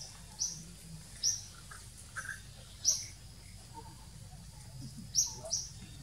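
Short, high bird chirps, about five of them at irregular intervals, each a quick slightly falling note.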